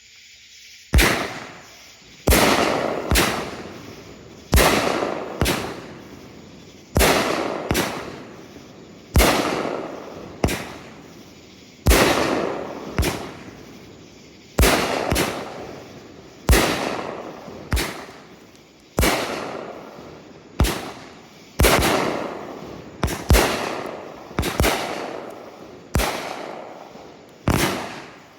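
A 16-shot, 500-gram consumer firework cake (Miracle Fireworks 'Going For The Gold') firing. Sharp bangs come about one a second, each followed by a fading tail, in a steady string throughout.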